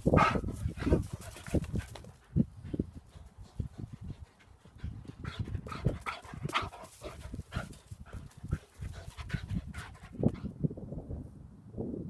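Greyhound panting, with irregular soft thumps and rustles as it moves about on dry grass.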